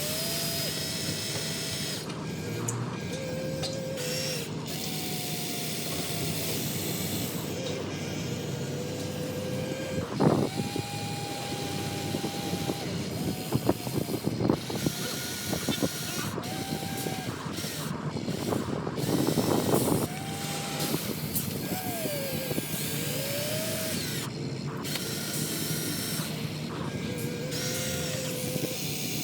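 Small electric motors and gears of a radio-controlled excavator whining, the whine rising and falling in pitch as it works, with a few sharp knocks and clatters in the middle.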